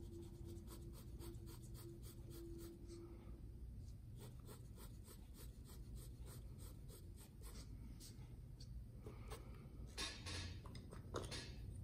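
Soft graphite pencil scratching faintly on drawing paper in quick, repeated shading strokes, pausing briefly partway through, with two louder scrapes near the end.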